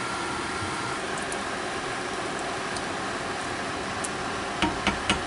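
Steady whirring fan noise, with a faint high whine for the first second. Near the end, a wooden spoon stirring in an enamel pot gives four quick sharp knocks.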